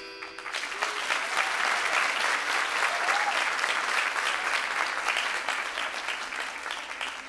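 Audience applauding, beginning about half a second in as the last notes of the music fade out, and thinning out near the end.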